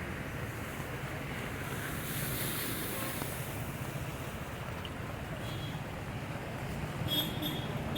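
Vehicles moving through a flooded road, a steady engine rumble mixed with water swishing and sloshing, swelling about two to three seconds in. Near the end comes a brief, high, ringing sound.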